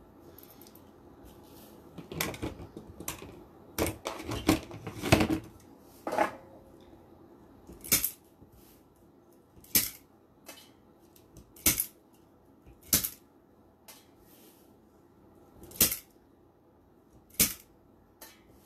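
Burlap petals and plastic zip ties being handled with rustles and knocks. From about eight seconds in come sharp snips every second or two, six in all, as the tails of the zip ties are cut off.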